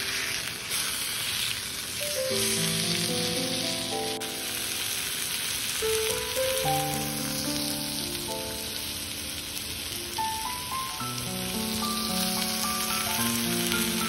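Meat sizzling as it fries in a cast-iron skillet: a steady hiss throughout. Soft background music of slow, sustained notes plays underneath.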